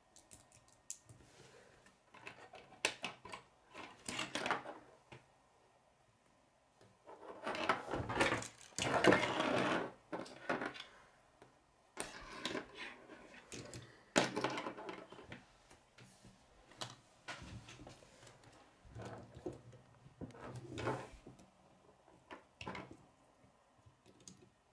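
Plastic K'nex pieces clicking and rattling as they are handled, snapped together and set down on a wooden table, in irregular bursts with a longer stretch of rattling about eight to eleven seconds in.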